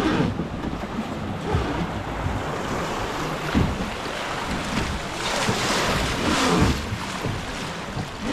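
River water rushing past a wooden river boat, with wind buffeting the microphone; the water noise swells louder for a couple of seconds past the middle.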